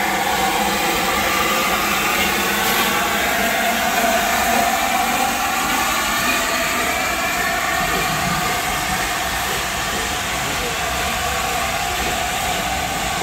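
Steam train running close by: a steady loud rush with hiss over it, and a ringing high tone with overtones that wavers slightly in pitch through the middle.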